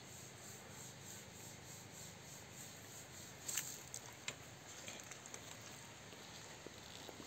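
Faint steady outdoor hiss with a high pulsing, about four pulses a second, and a few light clicks and rubs from fishing tackle being handled: a baited carp feeder and a spinning rod.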